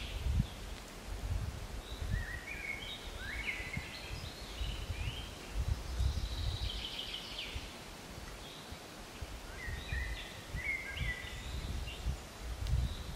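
Songbirds singing, several short phrases of stepped and trilled notes a few seconds apart, over a gusty low rumble of wind on the microphone.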